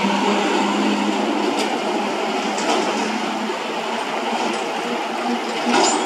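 A stream rushing steadily, with a few faint brief clicks, the last of them near the end.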